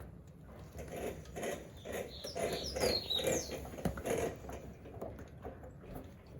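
Motorcycle chain and front sprocket squeaking and scraping in repeated irregular bursts as the bike is rolled forward. The noise comes from a front sprocket that has worked loose, held on only by its lock, and whose teeth appear bent.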